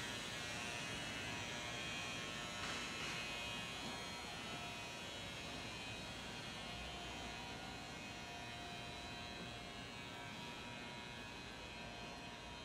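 Steady electrical hum and buzz with several high whining tones held at fixed pitch. It comes in just before the start and fades slowly toward the end.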